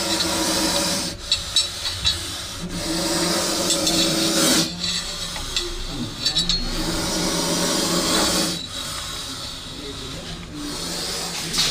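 Indian spectacled cobra hissing with its hood spread: a run of long, raspy hisses, each lasting one to four seconds, with short breaks between them.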